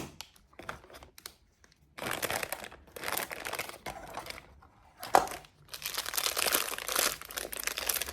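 A small toy figure's plastic wrapper being crinkled and torn open by hand: a few light clicks, then crinkling from about two seconds in, a sharp snap about five seconds in, and more crinkling after it.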